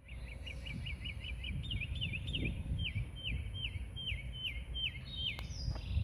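A songbird calling a long run of repeated down-slurred chirps, about three to four a second, over a low rumble of wind on the microphone.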